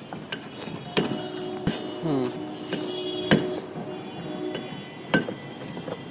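White PVC conduit pipes knocking and clinking against the steel rebar mesh as they are handled: a handful of sharp, separate knocks. A steady pitched tone with a brief falling glide is heard through the middle stretch.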